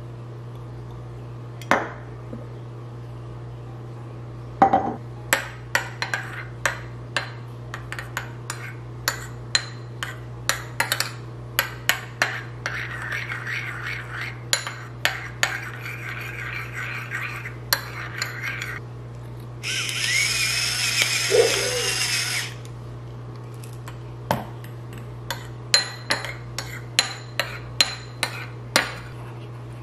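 Metal spoon stirring a sauce in a small ceramic bowl, clinking against the bowl in quick irregular taps, with a louder noisy stretch of a couple of seconds about twenty seconds in, over a steady low hum.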